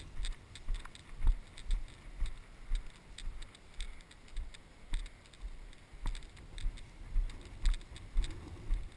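Footsteps of a person walking through knee-high pasture grass: an even rhythm of low thumps about two a second, with the grass swishing and brushing and small clicks and rattles between the steps.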